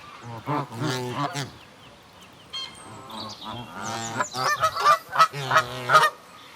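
Canada geese honking, several birds calling over one another: a few honks about half a second in, then a rapid, overlapping run of honks from about three seconds in that stops shortly before the end.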